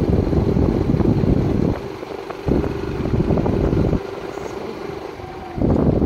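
Yamaha YBR 125 G single-cylinder motorcycle riding along a dirt road, its engine heard under heavy wind rush on the phone microphone. The rumble drops away twice for a second or so, leaving a faint steady engine tone.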